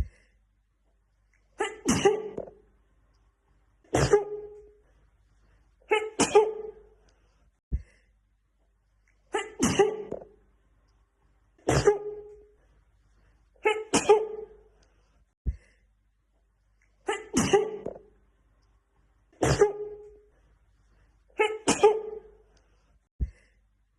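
A woman sneezing again and again in a fit, nine sneezes about two seconds apart, with a few brief clicks in the silent gaps between them.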